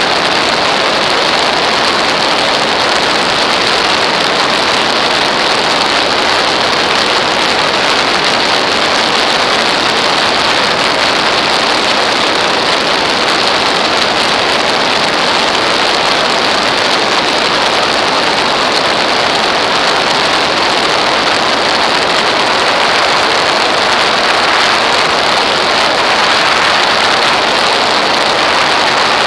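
Steady, loud rush of airflow over a wing-mounted camera in flight: even wind noise with no breaks or changes.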